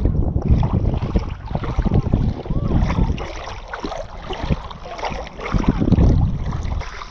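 Wind buffeting the microphone in gusts over shallow seawater, with water sloshing and lapping.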